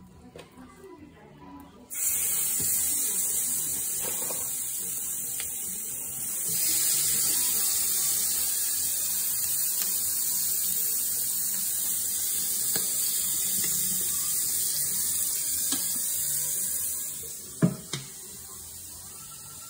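Raw chicken halves sizzling on the hot cast-iron grates of a Weber Q gas grill: a steady high hiss that starts suddenly and gets louder a few seconds later. Near the end the sizzle falls away and the grill lid closes with two sharp knocks.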